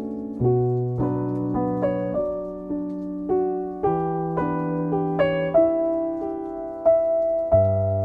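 Slow solo piano music: single notes and chords struck about once or twice a second and left to ring.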